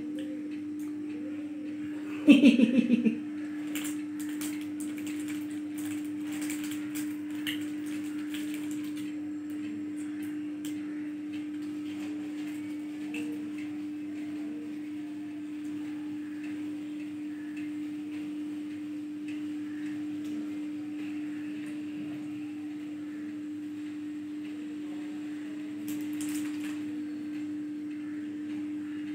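A steady low humming tone throughout, with a brief loud pulsing buzz about two seconds in. Light crinkles and clicks of a foil snack wrapper follow over the next few seconds.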